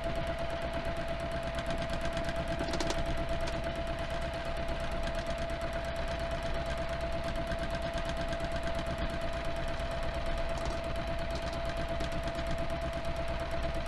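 Juki TL-2010Q single-needle lockstitch sewing machine running steadily at speed, stitching rapidly and evenly, with a steady hum under the needle's clatter. It is free-motion quilting with the feed dogs dropped.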